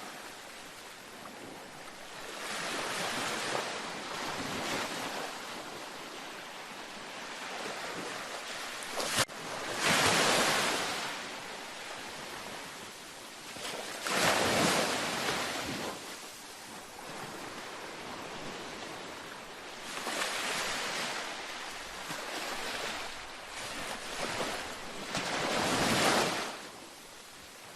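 Gentle ocean waves breaking on a beach, each one swelling up and washing back every few seconds. There is a single sharp click about nine seconds in, just before the loudest wave.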